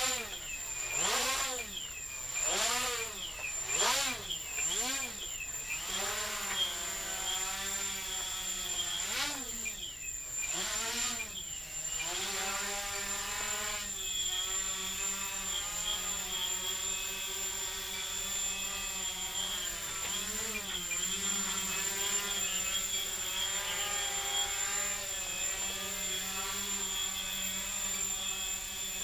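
Rc Logger Eye One Xtreme micro quadcopter flying, its T-Motor brushless motors and 6x2 carbon fiber props buzzing with a whine. The pitch rises and falls again and again for about the first twelve seconds, then settles into a steadier buzz that wavers slightly.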